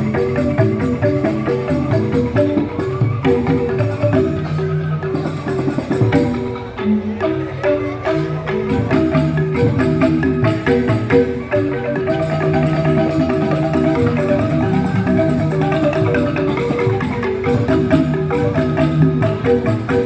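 A joged bumbung gamelan of bamboo xylophones (grantang) playing a fast, busy melody of repeated mallet notes over percussion, thinning briefly about six to seven seconds in.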